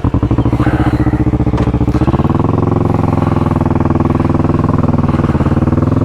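Motorcycle engine starting up and running with a fast, even pulse, then rising in pitch about two seconds in as it is revved and holding steady, with a brief dip in pitch near the end.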